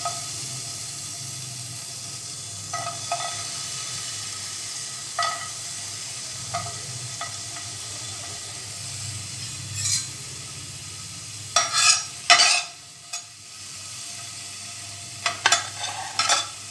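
Diced garlic sizzling steadily in a little hot vegetable oil in a non-stick wok. Short knocks and scrapes against the pan come now and then and bunch up near the end, where a spatula stirs the garlic.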